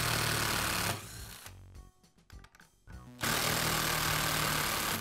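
Cordless power driver with a long bit running in two spells, one in about the first second and one from about three seconds in, backing out the screws that hold a chainsaw's top cover.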